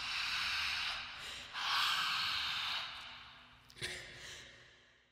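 A singer's heavy, ragged breathing and gasps at the close of a recorded song. Two long breaths of about a second each are followed by a short, sharp gasp and weaker breaths that fade away near the end.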